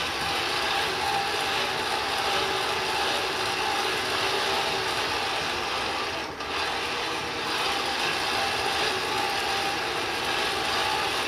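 Hand-cranked forge blower being cranked hard, its gears giving a steady whir with a faint hum, briefly dipping about six seconds in; the blast of air is driving up the heat of the coal fire.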